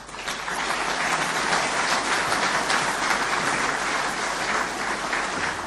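Audience applauding, a dense steady clapping from a large hall full of people, starting the moment the talk ends and beginning to fade near the end.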